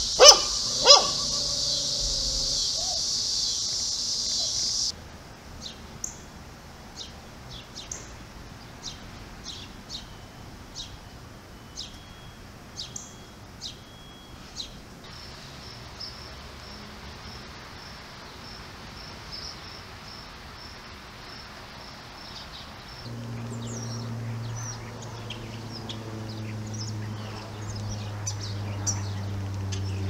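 A dog barks twice, sharply, in the first second, over a loud steady high-pitched insect drone that cuts off about five seconds in. Then small songbirds chirp in short repeated notes, with a steady pulsing high trill for several seconds, and a low steady hum comes in underneath near the end.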